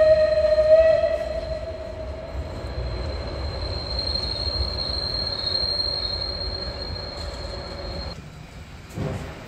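The steam locomotive's whistle ends about a second in. It gives way to a steady, high, single-pitched squeal of the coaches' wheels on the curve, which swells midway and stops abruptly near the end.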